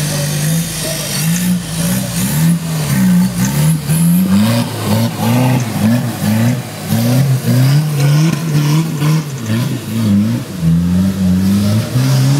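Suzuki Samurai off-roader's engine revved up and down in quick repeated bursts as it claws up a steep dirt slope. The engine holds a steady note at the start and again near the end.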